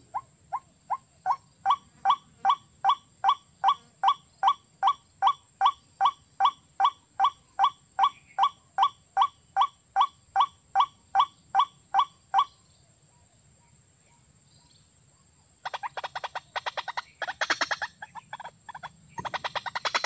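Water cock calling: a long series of evenly spaced notes, about three a second, swelling over the first couple of seconds and stopping about twelve seconds in. After a short pause a fast rattling run of notes starts, breaks off briefly, and starts again near the end, over a steady high whine.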